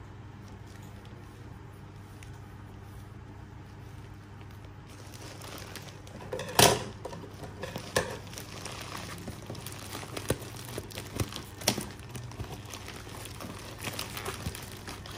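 Plastic bubble-lined courier mailer being handled and turned over, crinkling and crackling, with the sharpest crackle about six and a half seconds in. The first five seconds hold only a faint low hum.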